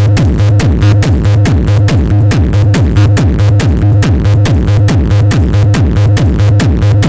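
Loud techno-style electronic dance music played through a mobile disco sound system at a sound check, with a heavy bass pulse about twice a second and bass notes that slide downward over a fast, steady beat.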